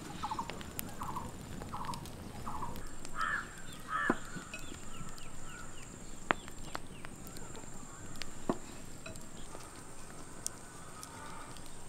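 A bird calling in a series of short repeated calls, with two louder calls about three and four seconds in; a few sharp clicks follow over a steady high thin tone.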